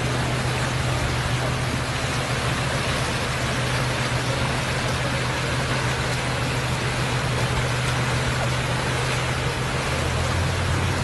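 Flash-flood water rushing over desert sand: a steady, even rushing noise with a constant low hum beneath it.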